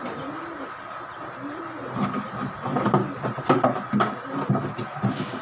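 Knocks and sharp clicks of a wooden pigeon widowhood box being handled and fitted, several of them in the second half, under low voices.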